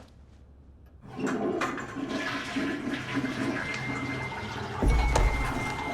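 Steady rushing, water-like noise that starts about a second in, with a low thud near the end.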